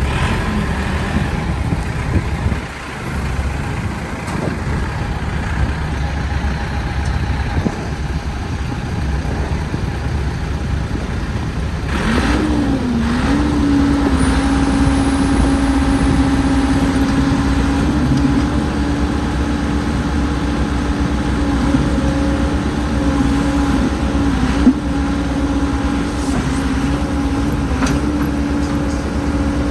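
Cat 416C backhoe's diesel engine running steadily. About twelve seconds in it grows louder and a steady higher tone joins, dipping and wavering a few times before holding.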